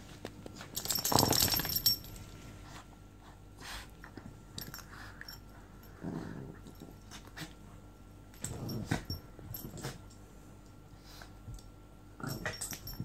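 Two dogs play-fighting, growling and scuffling in short bouts; the loudest comes about a second in, with others around six, nine and twelve seconds in. Scattered light clicks fall between the bouts.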